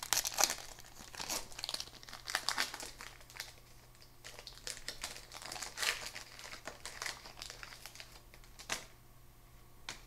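Wrapper of a 2006 Topps Opening Day baseball card pack being torn open and crinkled: dense crackling for the first few seconds, then sparser crackles, with one sharp click near the end.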